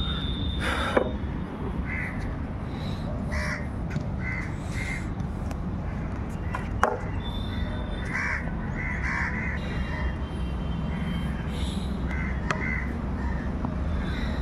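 Crows cawing repeatedly over a steady low background rumble, with one sharp knock about seven seconds in.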